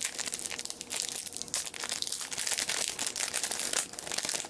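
Thin clear plastic bag crinkling as hands open it and work a photocard out, a dense run of fine crackles that is loudest past the middle.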